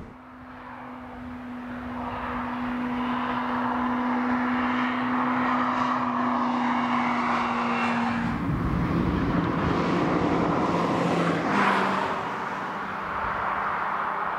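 Third-generation (NC) Mazda MX-5 Miata's four-cylinder engine and exhaust as the roadster drives by. A steady engine note grows louder as the car approaches, drops in pitch about eight seconds in, is loudest as the car passes about twelve seconds in, then fades.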